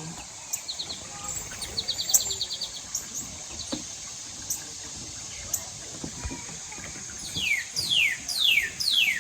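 Songbirds calling: quick trills of short, high chirps, then, near the end, four loud whistled notes that each slide down in pitch.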